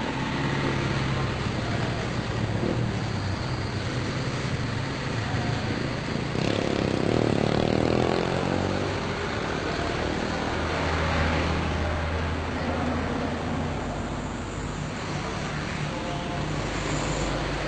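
Car engines running steadily with road noise as vehicles move off in a convoy, growing louder for a couple of seconds about seven seconds in.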